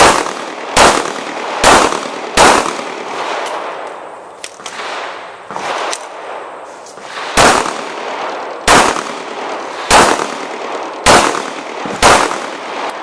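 Glock 21 Gen 4 .45 ACP pistol firing: four shots about a second apart, a pause of about five seconds with a few faint clicks, then five more shots about a second apart.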